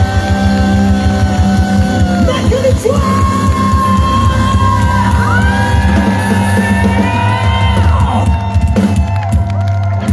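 Live rock band: a male singer holds long high notes, sliding from one to the next, over electric guitars, bass and drums.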